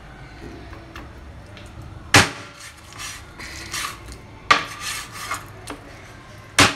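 Meat cleaver chopping raw chicken pieces on a cutting board: three heavy chops about two seconds apart, each a sharp knock with a short ring, with lighter knocks and handling clicks between them.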